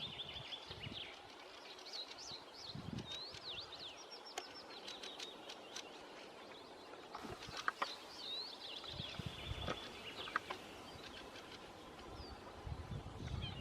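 Wild birds calling outdoors: high whistled chirps that sweep up and down, coming in small groups every few seconds, with a few faint clicks in the middle.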